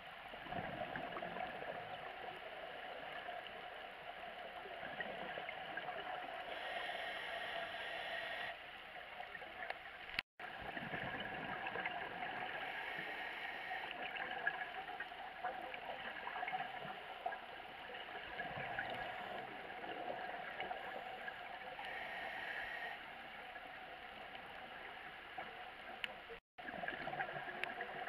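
Underwater sound through a camera housing: a steady muffled hiss with scuba regulator breathing, the bubbles of exhalations welling up every several seconds. It cuts out twice for an instant.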